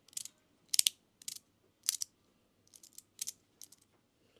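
Magnetic fidget slider's separate pieces being pushed and snapping into place, a 'soft crunch' version: a string of sharp clicks, about four strong ones in the first two seconds, then lighter quick clicks.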